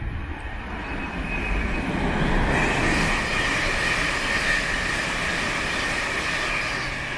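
Siemens Class 700 eight-car electric multiple unit passing through at speed without stopping. The rush of wheels and air builds for the first couple of seconds, peaks about three seconds in with a steady high whine over it, then slowly fades.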